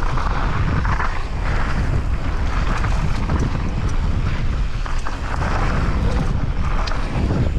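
Wind rushing over the microphone of a rider's action camera during a fast mountain-bike descent, with a low rumble and scattered small clicks and knocks from the bike on the dirt trail.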